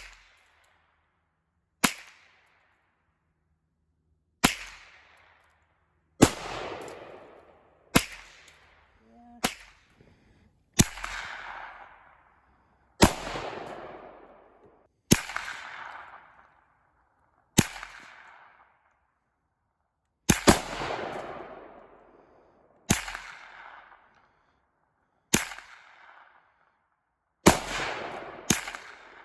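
Single rifle shots fired at an unhurried pace, about fourteen cracks roughly every two seconds, a few closer together, each followed by a trailing echo that dies away over a second or two.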